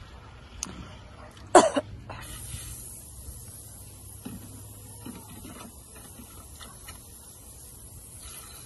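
A single short cough about one and a half seconds in, over a steady low hum; a faint steady hiss sets in just after it and runs on.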